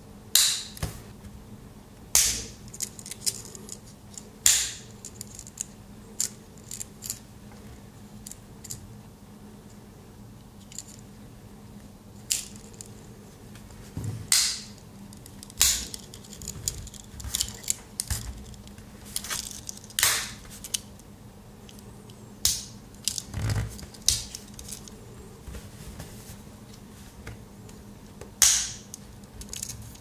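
Victorinox Explorer Swiss Army knife tools being opened and snapped shut on their springs: irregular sharp clicks, a few loud ones several seconds apart with lighter ticks between.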